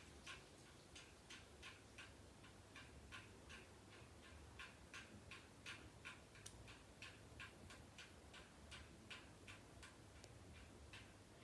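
A faint, irregular series of short, sharp ticks from a bird, about two or three a second, going on throughout.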